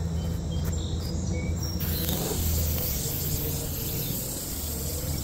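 Aerosol can of 3M Super 77 spray adhesive hissing in a continuous spray, starting about two seconds in. Before it, birds chirp briefly and insects trill.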